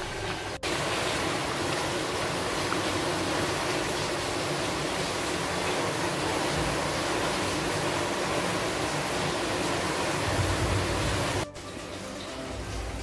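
Prawn and pointed gourd curry simmering in an open pan, its gravy bubbling with a steady hiss. It cuts off suddenly near the end.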